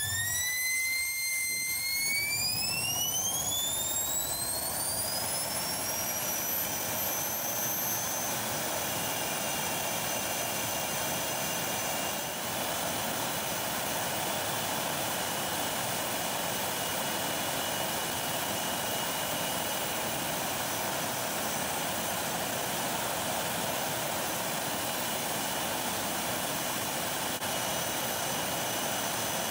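Homemade gas turbine jet engine spooling up with a rising whine over the first several seconds, then running steady at high speed with a high whine over a loud rushing blast, as afterburner fuelling is slowly increased.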